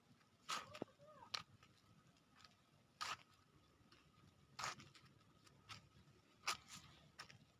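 Dog scratching its itchy skin: faint short scuffs every second or so, with a brief thin whine about a second in.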